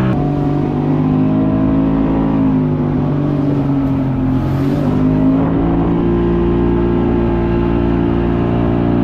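Outboard motor of a small fishing boat running steadily. Its pitch drops for a couple of seconds and then rises again about halfway through as the throttle is eased and opened.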